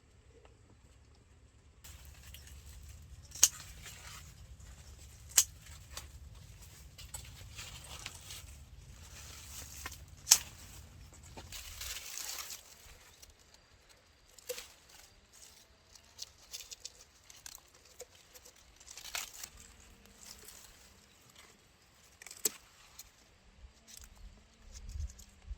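Rustling and handling noises with a low hum under the first half, cut by three sharp clicks, then scattered lighter taps and rustles.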